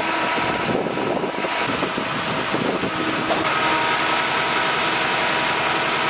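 Diesel engine of a truck-mounted concrete boom pump running steadily under load, with a few held tones over a dense mechanical rumble. The sound changes abruptly a couple of times.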